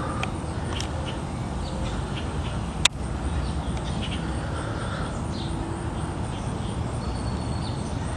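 Steady low rumble of outdoor background noise with faint bird calls, broken once by a single sharp click about three seconds in.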